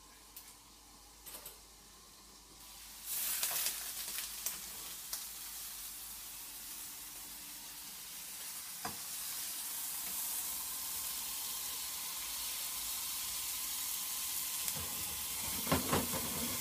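Chicken pieces with onions and raisins sizzling in a frying pan. The sizzle jumps louder about three seconds in as the glass lid comes off, then runs steadily, with a few knocks of a fork against the pan near the end.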